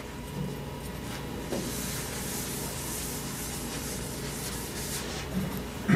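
Blackboard eraser wiping across a chalkboard, a steady rubbing hiss that starts about a second and a half in and stops near the end.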